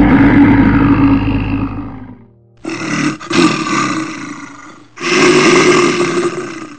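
Brown bears roaring as they spar, three loud roars in a row, each starting and cutting off abruptly, the first the longest.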